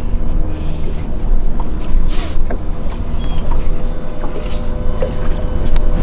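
Wind buffeting the microphone on an open boat, a heavy low rumble, over a steady hum from the boat's motor. The wind rumble drops away suddenly at the very end.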